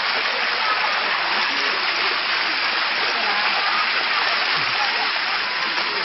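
Water rushing steadily down a limestone cascade waterfall, with faint voices of people in the background.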